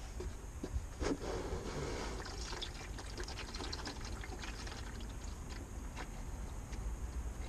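Used engine oil pouring from the open drain hole of the oil pan into a drain pan: a steady trickle, with a few light clicks.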